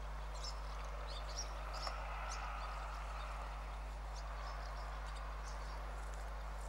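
Scattered short, high bird chirps over a steady low hum and faint hiss.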